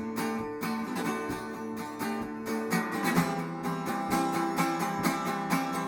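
Acoustic guitar strumming chords at a steady tempo, an instrumental passage between sung lines of a pop song demo.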